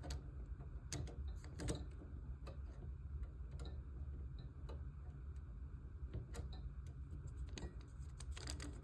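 Scattered light clicks and ticks of a hand screwdriver working a tiny screw into the model's frame until the thread bites, over a low steady hum.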